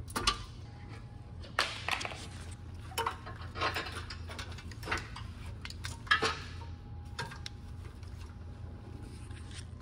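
Irregular clicks, clinks and short rattles from hands working wiring and parts in a car's engine bay, over a steady low hum.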